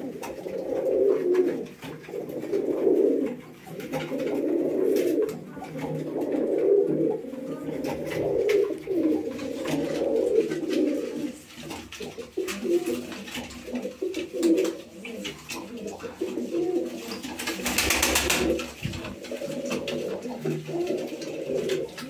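Uzbek tumbler pigeons cooing in a small indoor loft, a steady run of low, repeated coos that are fuller in the first half, with faint taps of beaks pecking grain. A brief rush of noise about eighteen seconds in.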